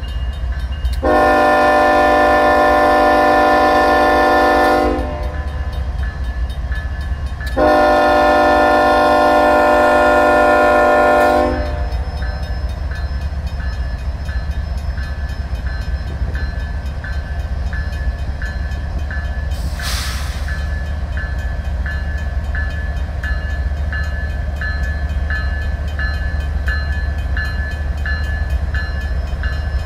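Union Pacific freight locomotive's air horn sounding two long blasts of about four seconds each, over the low steady rumble of the diesel engine as the train creeps across the crossing. After the horn, the crossing's RACO mechanical bell rings steadily about once a second, with a brief hiss about twenty seconds in.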